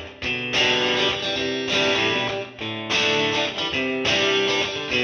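Background music led by strummed guitar chords.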